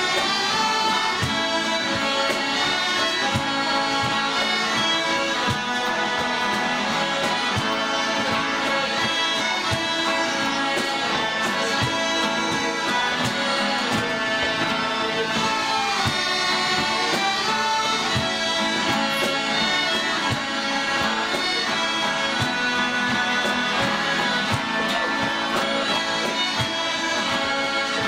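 A group of Scottish smallpipes playing a traditional tune together over their steady drones, with accordion in the band.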